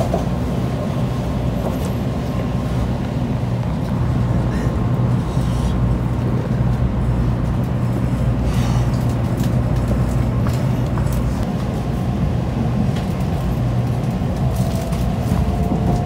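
Steady low rumble inside the passenger cabin of a Nozomi Shinkansen bullet train while it runs. A few light clicks come through about midway, as a plastic seat-back tray table is handled and unfolded.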